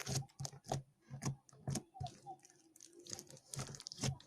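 Slime being pressed and pulled against a plastic tennis racket's strings: a string of irregular sticky pops and clicks, several close together in places.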